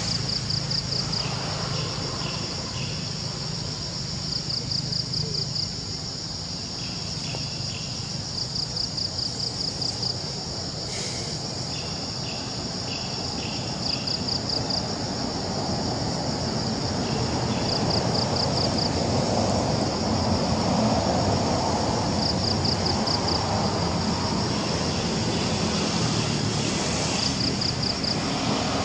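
Insects chirping in short, rapidly pulsing trills that repeat every two to four seconds over a constant high-pitched buzz, with a steady low hum underneath.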